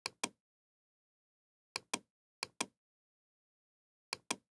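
Computer mouse button clicked four times, each a quick pair of clicks (press and release), with dead silence between.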